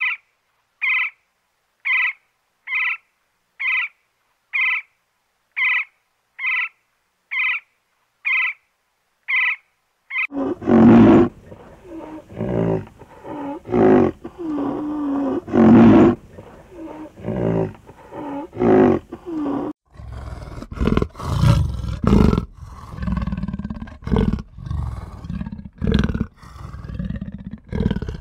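Great spotted woodpecker calling, a short sharp note about once a second, around eleven times. From about ten seconds in come loud, low animal roars and grunts in repeated bursts.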